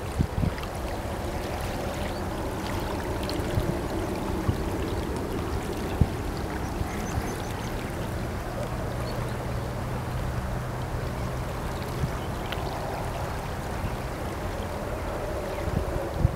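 Lürssen superyacht passing on a river: a steady low engine drone whose hum drops lower about halfway through, over a rushing of water, with a few short low thumps.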